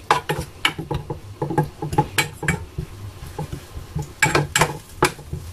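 A utensil scraping and knocking against a stainless steel saucepan as monkfish bones and skin are pushed around in oil. Irregular clicks come several times a second, with louder clusters about two seconds in and again about four seconds in.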